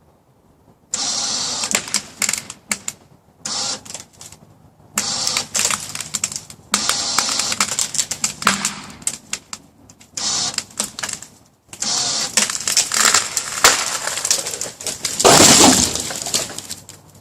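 A leaning chokecherry tree cracking and splintering as it is pulled over and falls, with branches snapping and crunching in repeated bursts. The loudest, heaviest crash comes near the end.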